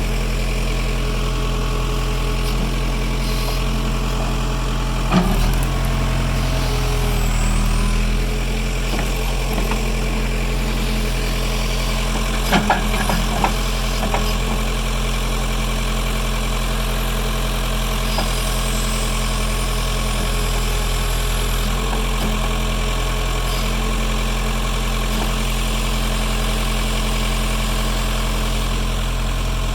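An engine running steadily at an even pitch, with a sharp knock about five seconds in and a few quick clanks about thirteen seconds in.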